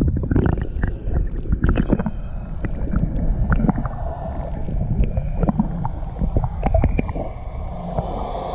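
Muffled underwater sound of lake water, heard through a camera microphone held below the surface: low rumbling and gurgling with scattered small clicks and knocks. Near the end a higher hiss comes in.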